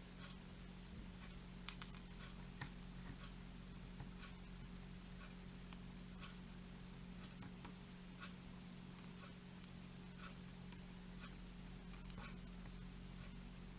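Small bench work on flux-coated pin headers during soldering: faint scattered clicks and taps, with a few brief soft hisses, over a steady low electrical hum.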